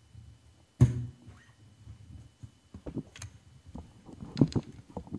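Handling noise of a bass guitar being brought back up close to the microphone: a sharp knock about a second in, the loudest sound, then several smaller knocks and bumps, over a low steady hum. No notes are played.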